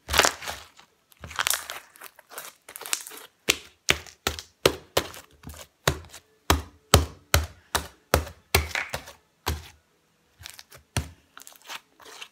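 Old slime being pressed, folded and squeezed by hand on a glass tabletop: a quick string of sharp wet pops and slaps, about two to three a second through the middle, with a short pause near the end.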